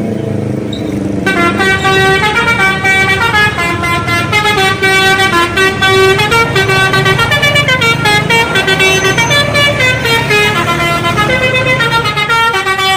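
Indonesian bus 'telolet' horn, a multi-tone musical air horn, playing a fast tune of stepping notes over the bus's low engine rumble. The tune starts about a second in and goes on for more than ten seconds.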